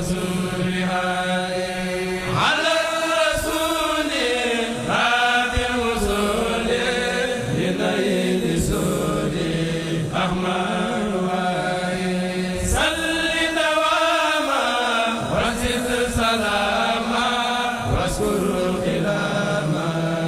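A kourel, a group of men chanting a Mouride xassida religious poem together, their voices in long held notes that rise and fall over a steady low hum.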